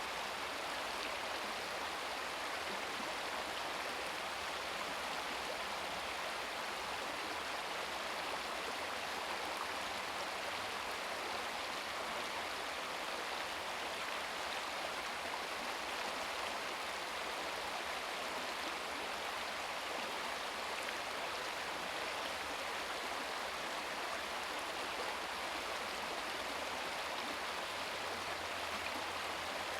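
Small stream babbling over rocks in a steady, even rush of water.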